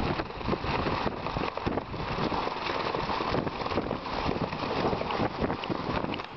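Strong wind buffeting the microphone, with loose corrugated metal roof sheeting hammering and rattling in the gusts. The sheets are not yet held down properly, and the wind is lifting and banging them; some later had to be replaced.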